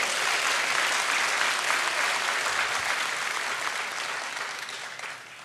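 Audience applauding, steady for about three seconds and then slowly dying away.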